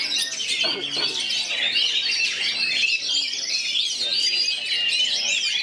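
Several Oriental magpie-robins singing at once in a dense, overlapping chorus of quick, varied high whistles and chirps.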